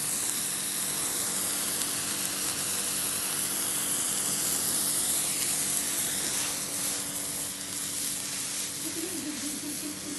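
A firework burning with a steady, continuous hiss that fades a little toward the end, with faint crackles in its later part.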